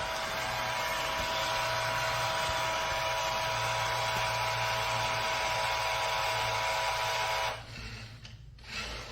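Roomba j7+ robot vacuum's motor whirring steadily, with a steady whine on top. It cuts off suddenly about seven and a half seconds in.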